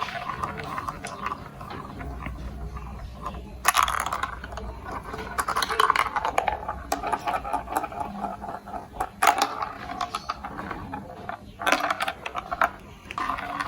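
Plastic marble run building blocks and marbles clattering: a continuous rattle of small hard clicks, with a few sharper knocks about four, six, nine and twelve seconds in.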